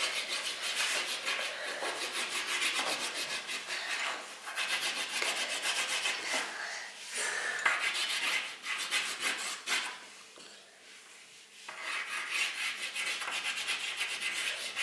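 Wax crayon scribbling fast back and forth on a paper colouring page on a wooden tabletop: a rapid scratchy rubbing that stops for about two seconds two-thirds of the way through, then starts again.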